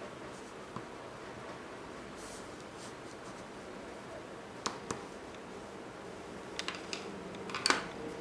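Pen tip scratching and tapping on drawing paper over a faint steady hiss, with a few sharp clicks in the second half, the loudest near the end.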